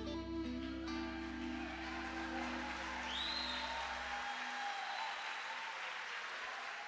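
A live band with saxophone holds its final chord, the upper notes stopping about a second in and the bass ringing on until about four seconds in, as audience applause swells. A rising whistle cuts through the applause about three seconds in.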